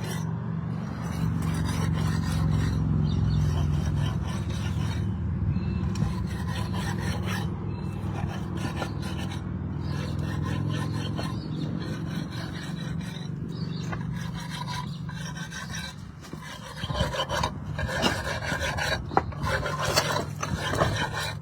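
A tool scraping and rubbing through mortar on the roof ridge, over a steady low hum. The scraping gets sharper and more clicky for the last few seconds.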